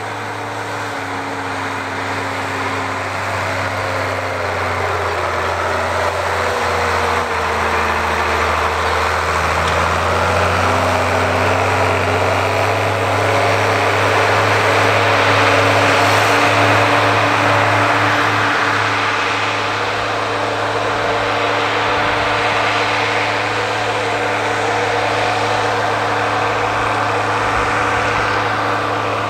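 Ford 9700 tractor's 6.6-litre (401 cu in) six-cylinder diesel running steadily under plowing load, pulling a five-bottom moldboard plow. It grows louder over the first half as the tractor comes closer, then holds.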